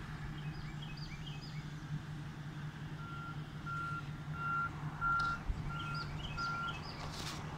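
Backup alarm of a railroad maintenance truck beeping six times, about one and a half beeps a second, as it reverses.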